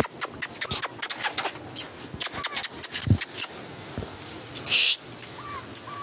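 A plastic poultry drinker being set on its base and handled, giving a run of quick clicks and light knocks, with a few short chirps from the chickens crowding it. A brief hiss comes about three-quarters of the way through.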